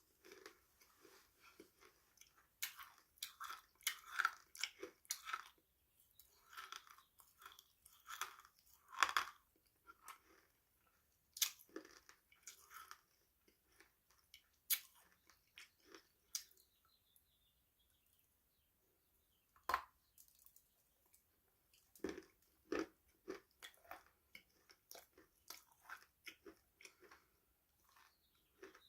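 Crunchy food being bitten and chewed close to the microphone: crisp, irregular crunches in bursts, with a short pause about two-thirds of the way through and a single sharp crack just after it.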